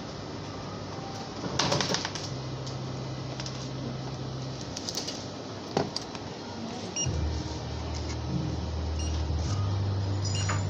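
Checkout-counter sounds: a steady low hum with scattered clicks and knocks, and a few short high beeps as a handheld barcode scanner reads ice cream cones.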